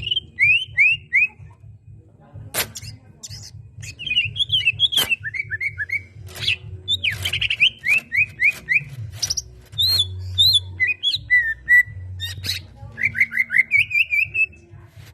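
A cucak ijo (green leafbird) singing: runs of quick, down-slurred whistled notes repeated in phrases, mixed with sharp clicking calls, over a low hum.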